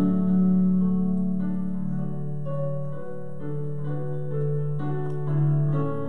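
Piano playing slow, held chords of a hymn accompaniment, the chords changing every second or so.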